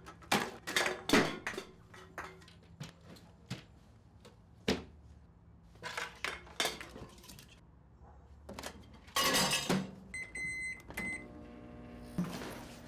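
Rustles and clunks of things being handled, a louder clatter about nine seconds in, then a few microwave oven keypad beeps and the microwave starting up with a steady hum near the end.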